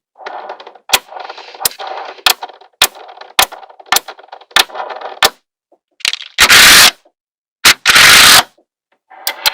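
Small magnetic balls snapping together with sharp clicks roughly every half second, with a light rattle of balls rolling against each other between the clicks. About two-thirds of the way through come two loud, harsh bursts of clatter, each about half a second long.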